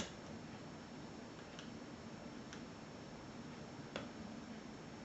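Faint, sparse metallic clicks of a lock pick and tension wrench working the pin stack of a 5-pin Euro cylinder lock that is held in a false set: a handful of ticks about a second apart, the sharpest about four seconds in, over a low steady hum.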